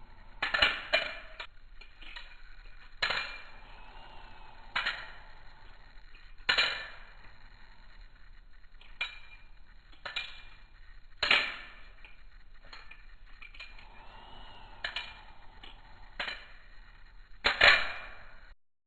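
A BRS balisong (butterfly knife) being flipped: about a dozen sharp metallic clicks and clacks at uneven intervals as the handles and latch strike together, each with a short ring. The loudest come near the start and near the end.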